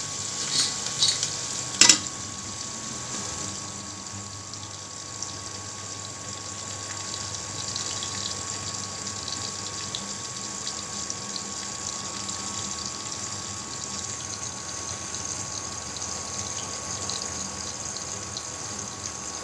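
Onions sizzling steadily in hot oil in an aluminium pressure cooker, with a few metal clanks in the first two seconds, the loudest as the cooker's lid is set on. A faint steady whine from the induction cooktop runs underneath.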